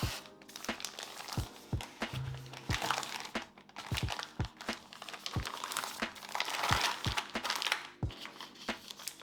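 Packaging being handled as a keyboard is unboxed: crinkling and rustling of wrapping, with scattered light knocks and taps, over soft background music.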